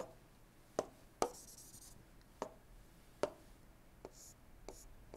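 Plastic stylus tapping and scratching on a tablet screen while drawing short dashed pen strokes: about seven sharp taps, the loudest about a second in, with brief scratchy strokes between them.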